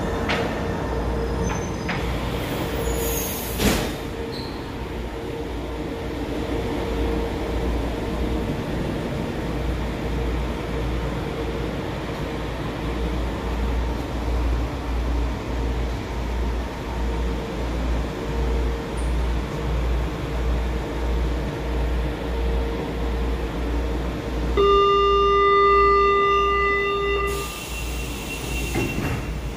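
Modernized São Paulo Metro train heard from inside the car, running through the tunnel with a steady rumble and a held whine, and one sharp crack about four seconds in. Near the end, as it reaches the station, a steady electronic tone sounds for about three seconds, followed by a short hiss.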